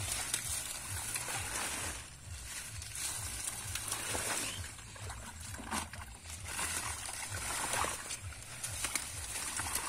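Shallow muddy water sloshing and water hyacinth leaves and stems rustling as hands pull through the plants, with irregular small splashes.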